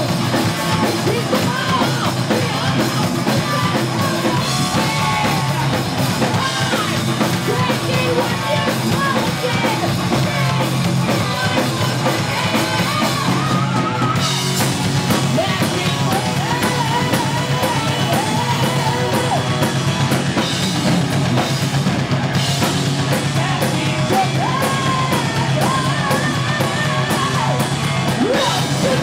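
Live rock band playing electric guitars over a drum kit, loud and continuous.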